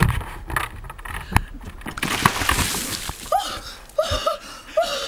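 Ice water from plastic buckets pouring and splashing over a person, preceded by clattering knocks as the buckets are lifted. After the splash come short yelps and gasps at the cold.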